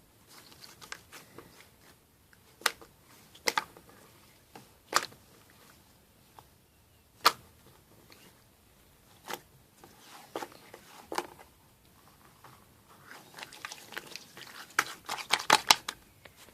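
Homemade slime being squeezed and worked by hand, giving scattered sharp pops and clicks, with a quick run of them near the end.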